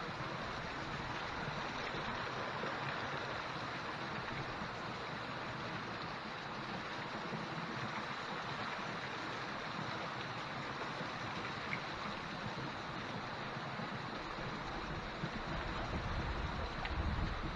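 Steady rush of a mountain stream running down the rock, with low wind rumble on the microphone picking up near the end.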